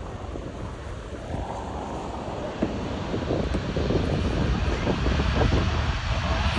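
Boeing 787-9 airliner's jet engines at takeoff thrust during the takeoff roll: a steady rushing noise with a deep rumble that grows louder from about a second and a half in. Wind buffets the microphone.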